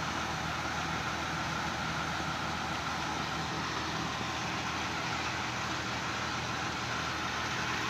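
Diesel engine of a heavy truck-mounted drilling rig idling steadily, an even low hum that neither rises nor falls.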